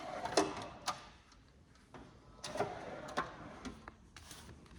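Metal tool chest drawers being worked: a handful of scattered clicks and knocks, with a few short sliding rasps as drawers are pulled out and pushed back on their runners.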